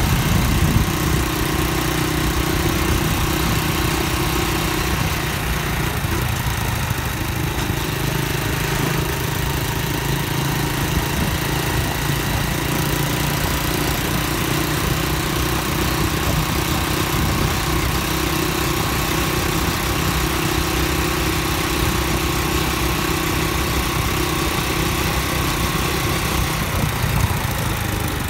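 Honda Dream underbone motorcycle's single-cylinder four-stroke engine running steadily while riding along at an even pace, with a steady hiss of wind and road noise over it.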